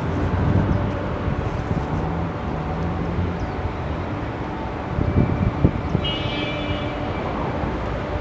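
Steady low mechanical rumble of a running motor, with a few knocks about five seconds in and a brief high tone about six seconds in.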